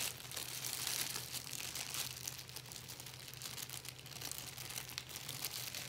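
Clear nylon storage bag around a paper-wrapped fish crinkling and crackling as it is handled to work the air out. A steady low hum runs underneath.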